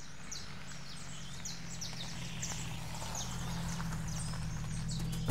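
Birds chirping in quick falling notes, several a second, over the low steady hum of a small hatchback's engine as the car rolls slowly in to park on gravel.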